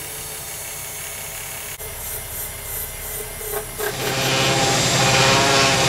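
Wood lathe running as a parting tool cuts into a spinning plastic duckpin bowling ball, a scraping cut. About four seconds in it gets louder, with a low steady drone under the cutting noise.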